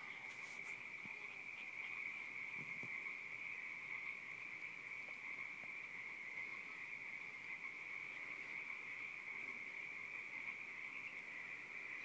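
Crickets chirping in a dense, steady night chorus, a continuous high-pitched trill.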